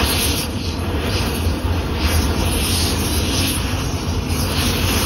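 Oxy-acetylene torch flame running with a steady rushing hiss and low rumble while it burns the pistol's frame.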